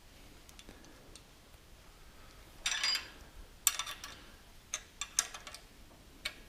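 Hand wrench on a steel bolt as the bolt is turned down to secure a nut lock on a tractor transmission case: a short rattle about midway, then a few sharp metallic clicks of the wrench against the bolt head.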